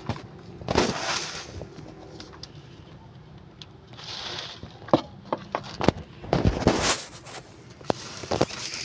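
A small metal cup scraping into a plastic tub of crumbly compost and pouring it into a polythene grow bag: several short rustling pours with a few sharp clicks of metal against plastic.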